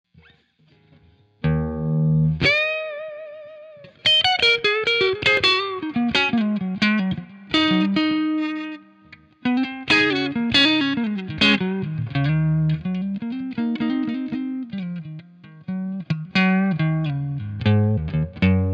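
Electric guitar music: a chord about a second and a half in, a note bent upward, then quick runs of picked single notes.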